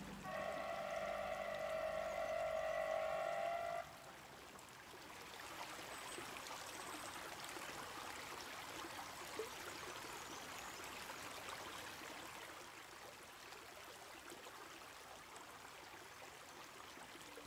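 Water rushing over a river weir in a steady, even wash of noise. It opens with a loud held chord of several steady tones that lasts about three and a half seconds and then cuts off.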